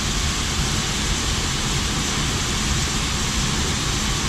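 Grain-handling machinery running steadily while corn is unloaded from a truck into the bin: a loud, even rushing noise with a low rumble underneath.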